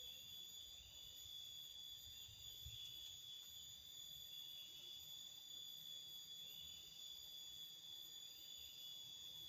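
Near silence, with a faint steady insect drone of crickets holding several high thin tones and a few faint chirps in the first few seconds.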